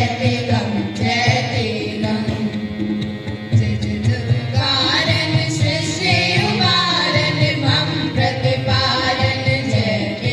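Sikh kirtan: a group of girls singing a devotional hymn, accompanied by harmonium and tabla.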